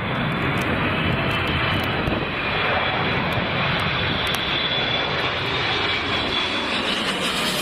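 Boeing 777's jet engines running steadily during a crosswind landing: an even rushing noise with a faint high whine.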